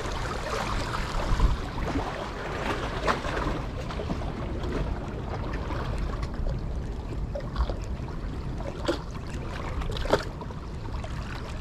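Wind noise on the microphone over water washing against rocks, with a few sharp clicks scattered through, the loudest about a second and a half in.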